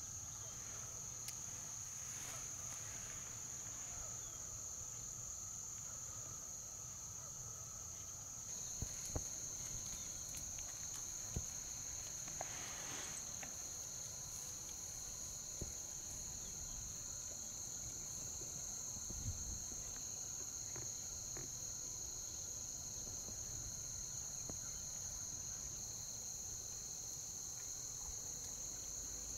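Steady, high-pitched chorus of insects in a marsh at dawn, with a second, lower-pitched voice joining about a third of the way in. A few faint clicks stand out now and then.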